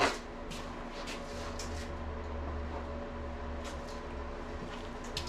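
A sharp knock of a hand tool being picked up, then a few faint handling clicks over a steady low hum.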